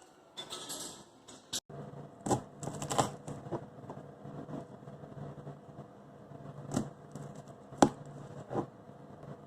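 Scattered sharp clicks and knocks, about five of them, over a low steady hum.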